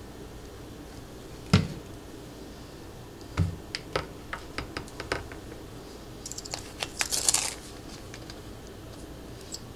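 Kitchen handling sounds: a sharp knock, then a duller thud, of a plastic syrup bottle and measuring cup being put down on a countertop, followed by a run of light clicks and a brief rustle.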